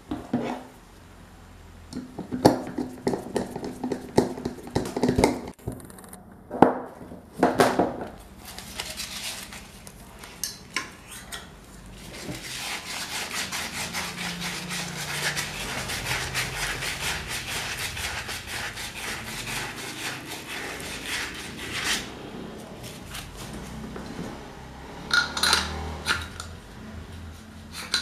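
Metal parts of an electric fan motor clinking and knocking as they are handled by hand, with a stretch of steady metal-on-metal scraping and rubbing starting about twelve seconds in and lasting about ten seconds, then a few more sharp knocks near the end.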